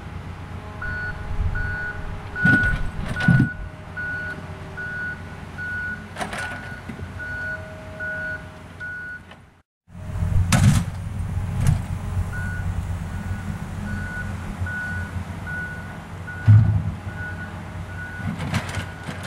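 A vehicle's electronic warning beep repeats at a steady high pitch, about twice a second, over a low steady rumble. A few sharp knocks and thumps come from the sand cone apparatus's jug and funnel and a plastic jar being handled and set down.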